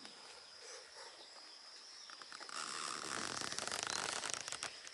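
Crinkly rustling, building about two seconds in and stopping near the end, over a steady high-pitched insect drone.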